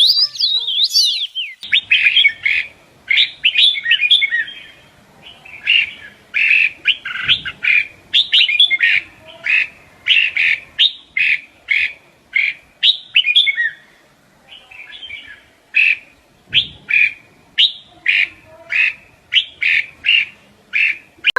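A bird calling over and over in short, sharp chirps, about two a second, after a few quick falling whistles at the start.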